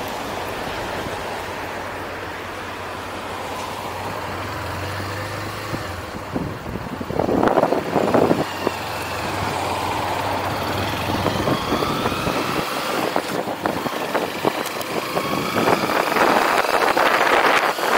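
Motorcycle engine idling with road traffic passing, a louder burst about seven seconds in, then the bike pulling away and accelerating, its engine pitch climbing, with wind noise on the microphone near the end.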